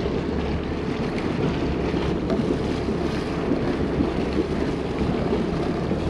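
Wind buffeting the microphone over the steady low hum of the boat's engine.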